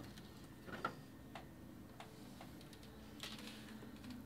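A few faint, scattered plastic clicks and taps as the front faceplate of a desktop computer tower is handled and swung open, over a low steady hum.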